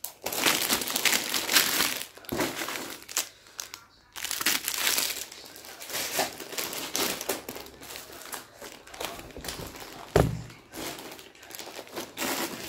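Plastic packaging crinkling and rustling as hands rummage through plastic-wrapped craft supplies packed in a cardboard box, in uneven handfuls, with one dull thump about ten seconds in.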